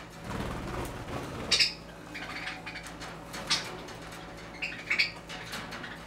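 Budgerigar giving a few short, sharp chirps, with a soft rustle in the first second as the bird moves about.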